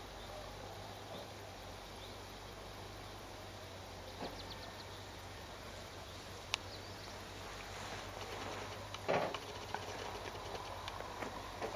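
Quiet outdoor evening ambience: a steady low hum and hiss with faint, quickly repeated chirps. A sharp click comes about six and a half seconds in, and a soft thump about nine seconds in.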